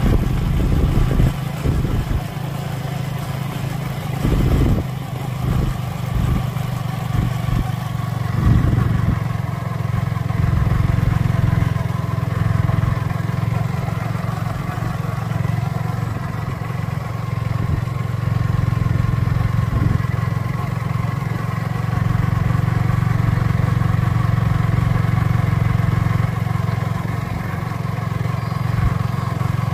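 Motorbike engine running steadily while riding, with irregular low rumbles in the first several seconds.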